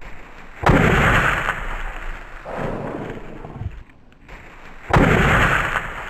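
Two loud shotgun shots about four seconds apart, each a sudden bang that trails off over about a second.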